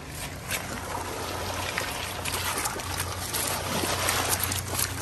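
Water splashing and trickling, with many quick, irregular small splashes.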